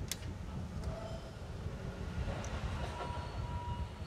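Steady low rumble of workshop noise, with a few light metallic clicks as parts are handled in the wheel arch and a faint steady high-pitched tone that begins about three seconds in.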